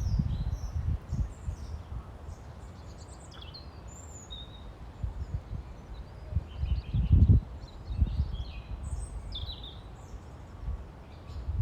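Wind buffeting the microphone in uneven gusts, the strongest about seven seconds in, while small birds chirp and twitter throughout.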